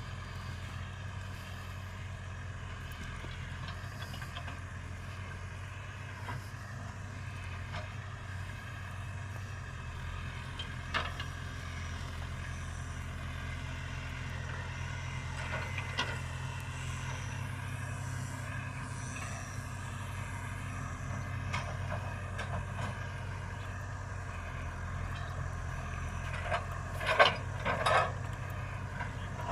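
Case Super K backhoe loader's diesel engine running steadily, with an occasional sharp knock and a cluster of louder knocks near the end.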